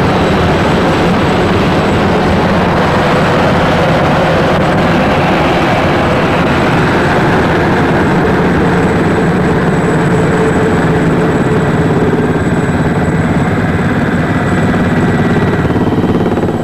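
Helicopter in flight heard from inside the cabin: a loud, steady mix of engine and rotor noise, dropping slightly just before the end.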